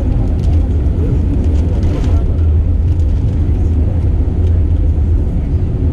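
Cabin noise of an Airbus A320 taxiing: a steady, loud low rumble from the idling engines and the aircraft rolling on the taxiway.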